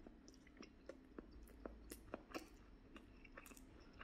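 Faint close-up chewing of a mouthful of food, with scattered small wet mouth clicks over a low steady room hum.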